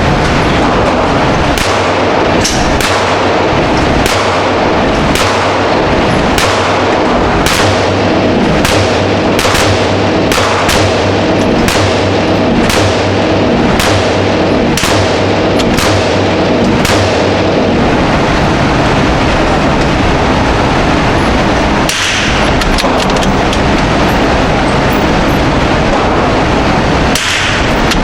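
A rapid series of sharp gunshots, about one or two a second for some fifteen seconds, with two more single shots later, over a steady loud background noise.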